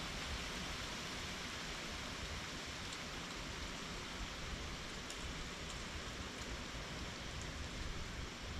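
Steady, even background hiss with a few faint ticks.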